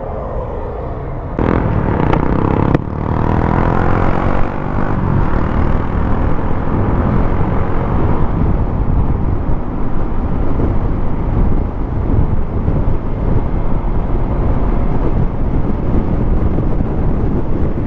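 Steady noise of a vehicle on the move, road and wind rumble, stepping up in loudness about a second and a half in, with a single sharp click shortly after.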